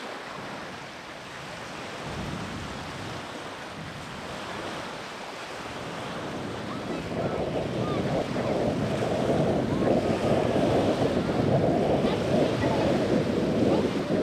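Small waves breaking on a sandy shore with wind on the microphone; about halfway through the wind rumble grows louder.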